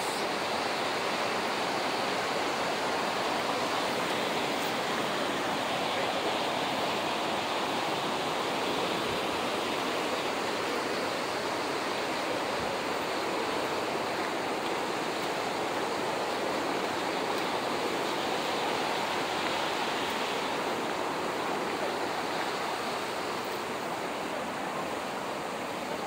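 Steady rushing of falling water from Horsetail Falls, an even hiss that doesn't break or change.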